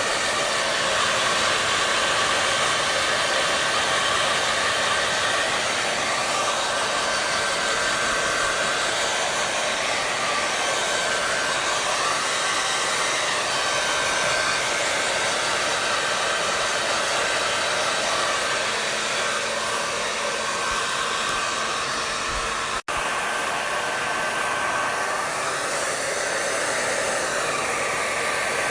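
Hair dryer running steadily: a continuous rush of air with a faint high whine from the motor. It cuts out for an instant about 23 seconds in.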